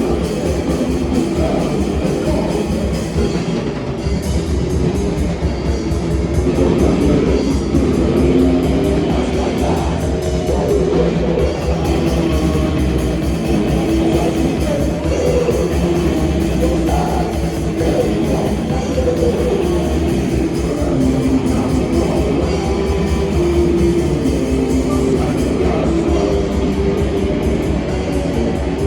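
A live rock band playing loudly, with electric guitars and a drum kit beating at a fast, steady pace.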